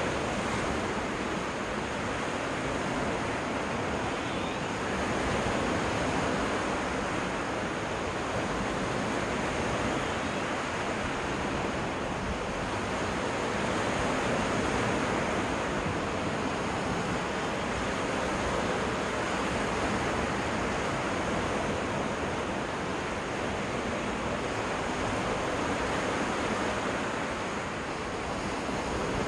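Waves washing onto a freshwater lake beach, a steady surf noise that swells and eases slowly every several seconds.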